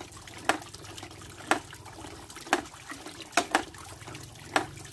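Water trickling steadily through a miniature PVC-pipe waterfall landscape, with a sharp click from its moving parts about once a second, doubled once past the middle, over a faint low hum.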